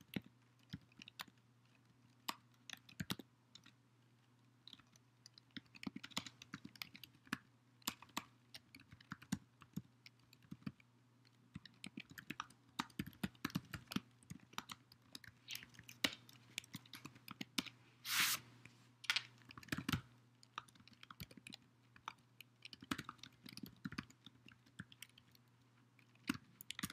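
Typing on a computer keyboard: irregular runs of key clicks with short pauses, over a faint low hum. One brief, slightly longer burst of noise comes about two-thirds of the way through.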